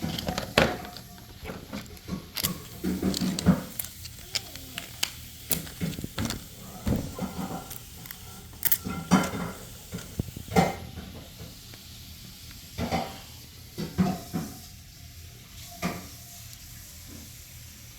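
Blink video doorbell packaging being handled during unboxing: irregular crinkling, rustling and sharp clicks, coming in scattered bursts.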